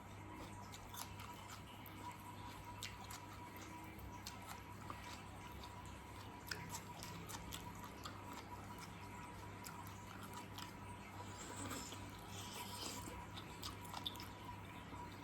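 Close-miked chewing and biting of braised pork hock (patatim): soft, wet, irregular mouth clicks, over a steady faint hum.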